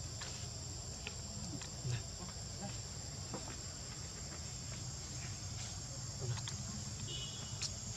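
Steady high-pitched insect chorus, with scattered faint clicks and a brief chirp about seven seconds in.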